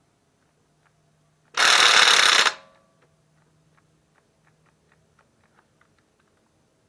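Cordless impact wrench hammering on a wheel lug nut in one burst of about a second, on a battery run down to one bar. A series of faint light clicks follows.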